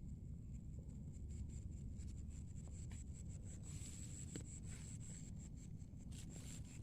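Faint night ambience in a rice paddy: a steady high-pitched insect trill over a low rumble, with scattered faint scratchy rubbing sounds.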